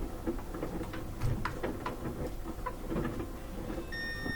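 Light clicks and taps of a screwdriver and screws as the screws go back into the rear of a front-loading washer's top panel, over the faint low hum of the running washer. About four seconds in, a steady high tone begins.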